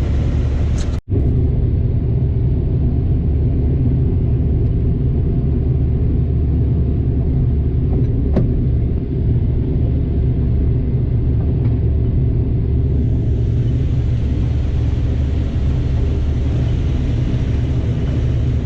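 Heavy farm harvest machinery's diesel engine running steadily at working speed, a loud, even, low drone, with a brief cut-out about a second in.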